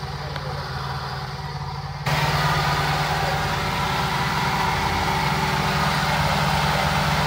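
Toyota Corolla's carbureted four-cylinder engine idling steadily on its newly fitted carburetor. It sounds muffled for about the first two seconds, then comes in louder and clearer.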